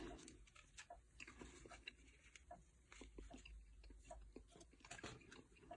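Near silence broken by faint, scattered small clicks and light rustles of handling: an Intel desktop CPU and its plastic packaging being handled.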